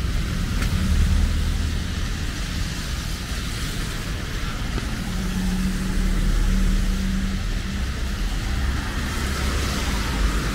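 City street traffic: vehicle engines running close by over a steady hiss of road noise, with one engine's hum standing out for a couple of seconds midway.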